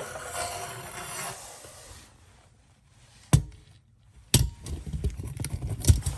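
Metal tools and parts clicking and knocking as a water heater heating element is handled and fitted: one sharp knock a little over three seconds in, then a run of clicks and clatter near the end. A hiss fades out over the first two seconds.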